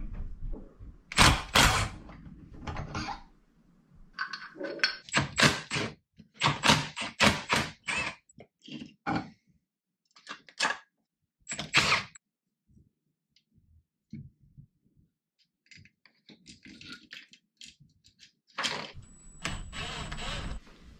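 Metal hand tools and engine parts clanking and tapping as a motorcycle engine is disassembled, in irregular clusters of sharp knocks with short quiet gaps. A thin high squeal sounds briefly near the end.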